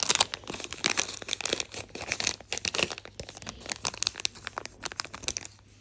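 Small plastic lure packets being handled, with irregular crinkling and crackling and some tearing, dying away near the end.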